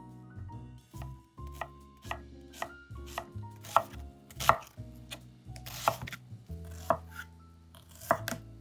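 Knife chopping on a cutting board: a series of sharp, irregular strikes, roughly one or two a second.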